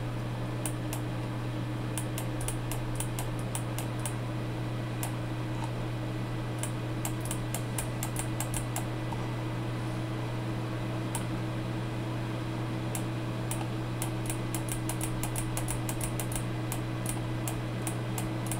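Small computer-mouse clicks and scroll-wheel ticks, sparse at first and then in quick irregular runs, over a steady low electrical hum.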